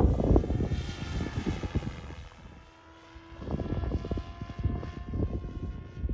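Raw 420 radio-controlled helicopter flying overhead: a thin, steady high whine from its rotor and motor. Gusty wind rumbles on the microphone, easing off about two and a half seconds in and returning a second later.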